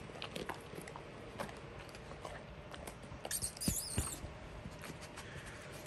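Weimaraner chewing a dog treat: scattered small crunching clicks, with a brief rustle about three seconds in and two sharper cracks just after.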